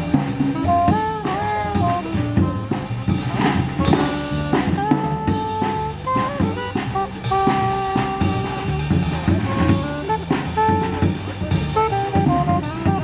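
Small jazz band playing live: a saxophone carries the melody in held and moving notes over a drum kit with cymbals and an upright double bass.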